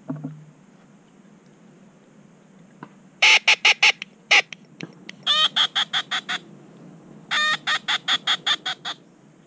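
Duck call blown in runs of short quacks: a group of four loud quacks, a single one, then two longer strings of about eight and ten quacks, each trailing off toward its end. A short low knock at the very start.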